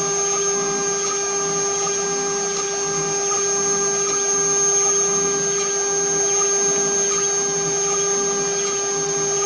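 CNC router spindle running with a steady high whine while its cutter engraves aluminum, under a rougher cutting noise that swells and fades as the tool moves through the metal.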